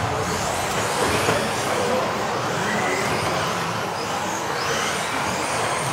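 Several electric off-road RC buggies racing at once, their motors whining up and down in pitch as they accelerate and brake, over a steady rush of tyre noise echoing around a sports hall.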